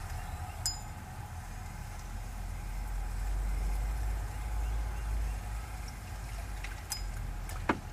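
Spinning reel being cranked to bring in a hard-fighting bluegill, over a steady low rumble, with two short sharp clicks, one near the start and one near the end.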